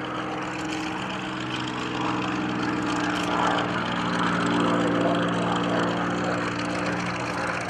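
Aircraft engine drone: a steady pitched hum that grows a little louder partway through and eases toward the end.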